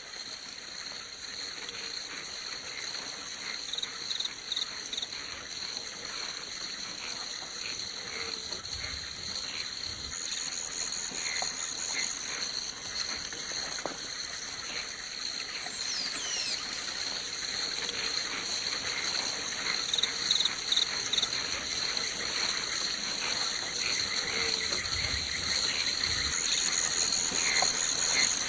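Night-time swamp ambience: a steady high-pitched insect drone with scattered short frog and insect chirps over it.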